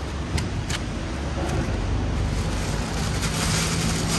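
Low steady rumble of street traffic. Within the first second there are two sharp clicks as a knife cuts bananas from the bunch, and near the end a plastic bag rustles.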